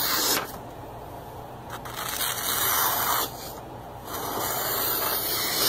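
A thick-bladed, hand-forged Big Bastard knife slicing through a sheet of bond paper in a sharpness test. There are three hissing cuts: a short one at the start, then longer ones about two and four seconds in.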